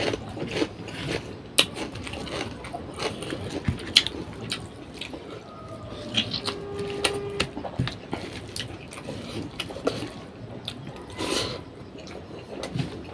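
Close-up eating sounds: chewing with wet mouth smacks and irregular clicks.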